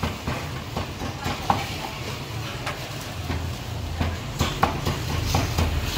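Cleaver chopping roast meat on a wooden chopping block: a string of irregular sharp knocks over a steady low hum.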